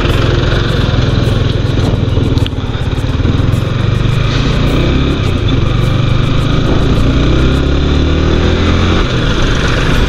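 Yamaha R15 V4's 155 cc single-cylinder engine running as the motorcycle moves off and speeds up, its engine note rising over the second half.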